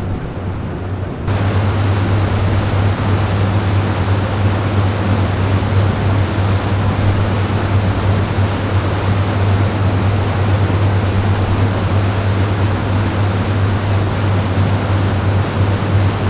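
A passenger boat under way: the steady low drone of its engines under the loud rushing hiss of its churning propeller wake. Everything jumps louder a little over a second in, then holds steady.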